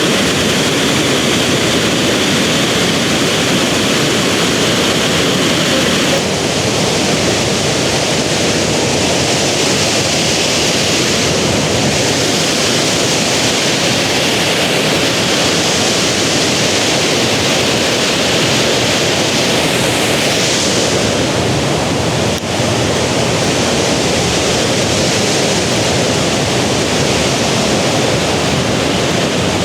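Dalcairney Falls waterfall, a loud steady rush of falling water.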